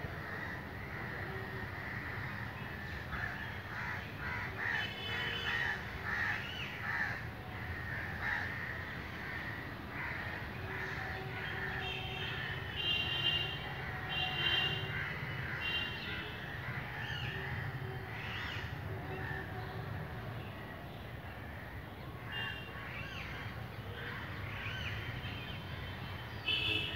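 Crows cawing on and off in the trees, several calls in a row in the middle of the stretch, over a steady outdoor background.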